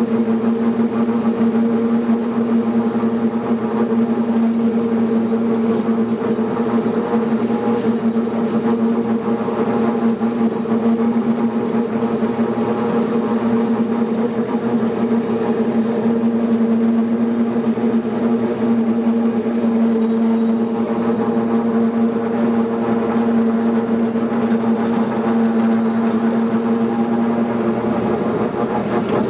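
Tractor engine running steadily while driving over the field, a constant drone with no change in pitch.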